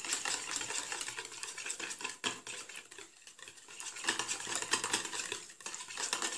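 Small hand whisk beating oil, yogurt and egg white in a plastic bowl: a fast run of light ticks and rattles as the whisk strikes the bowl, with wet slapping of the liquid. It eases off briefly in the middle, then picks up again.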